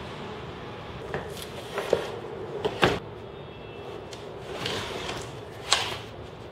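A long white board being handled on a wooden workbench: a series of knocks and short scrapes as it is picked up, set down and slid across the bench, over a steady low background hum.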